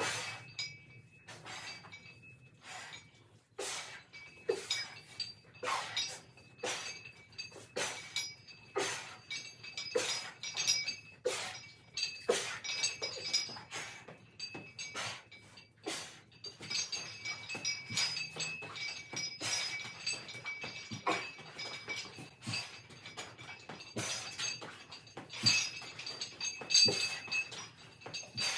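Metallic clinking of exercise equipment during a workout set: sharp clinks, roughly one or two a second, each with a brief ring.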